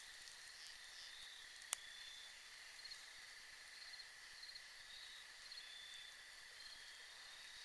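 Faint cricket chirping: short high chirps about once a second over a thin, steady high tone, with a single sharp click about two seconds in.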